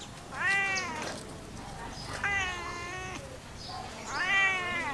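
Domestic cat meowing three times, about two seconds apart. Each meow is under a second long and rises in pitch, then falls away.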